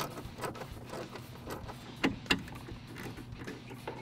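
Small clicks and taps of hands fitting a screw into a replacement door speaker's mount inside a Ford F-150's inner door, with two sharper knocks about two seconds in.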